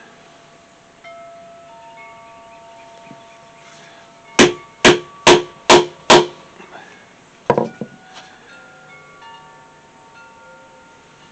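A leather slot-cutting punch is struck five times in quick succession, about two blows a second, driving it through the leather; a few lighter knocks follow. Soft, sustained ringing tones at several pitches sound underneath throughout.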